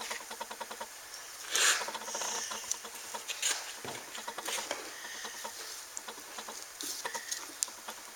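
Light metallic clicks, taps and scrapes as a steel bearing race is worked onto a Ford 9-inch differential carrier bearing by hand. There is a sharper click about a second and a half in and another about four and a half seconds in.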